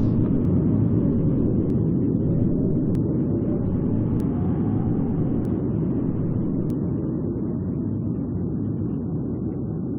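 Deep, noisy rumble of a big explosion sound effect slowly dying away, its sharp high end gone and only the low roll left.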